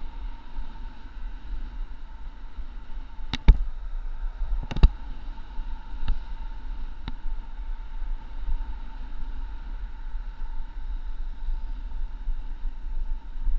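Wind and road rumble on the microphone of a camera riding along in traffic, with a faint steady whine. Two sharp knocks stand out, about three and a half and five seconds in, followed by a couple of lighter clicks.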